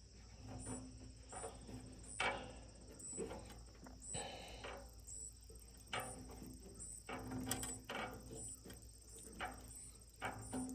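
Faint, irregular light clicks and knocks, a dozen or so, over a low steady hum.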